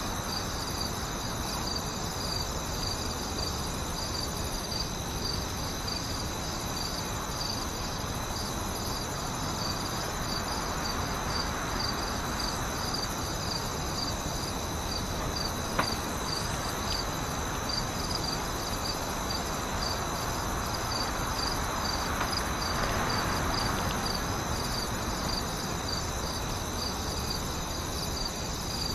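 Night-time chorus of crickets chirping in a steady, even pulse over a low, constant hiss, with a single brief click about halfway through.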